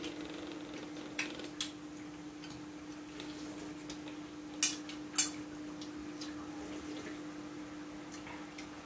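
Spoons clinking and scraping against a steel bowl and a glass bowl while eating, a handful of sharp clinks with the two loudest about four and a half and five seconds in, over a steady low hum.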